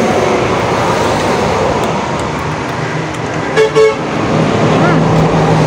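Two short beeps of a vehicle horn in quick succession about three and a half seconds in, over steady background noise.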